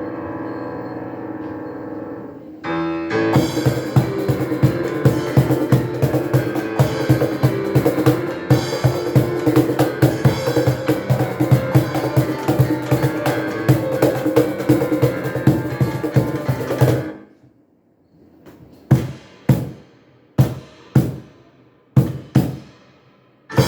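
Live piano and cajon music. Sustained ringing tones for the first few seconds, then a steady struck beat joins until the music stops abruptly about two-thirds of the way through. About eight single drum strokes follow, with pauses between them.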